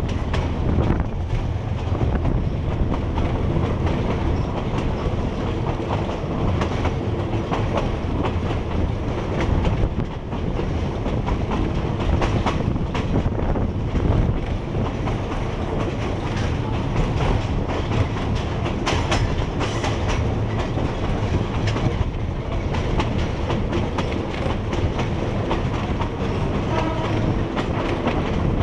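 A train running over old, poorly maintained track, heard from inside the carriage: a steady low rumble with wheels clacking irregularly over the rail joints.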